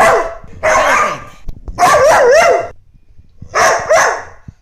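A dog barking loudly in three drawn-out barks, each under a second long and about a second apart, the middle one wavering in pitch.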